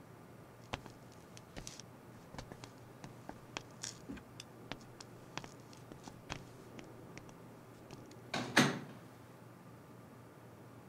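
Soft footsteps and small clicks as people walk into a room, then a door shutting with a thud near the end, the loudest sound.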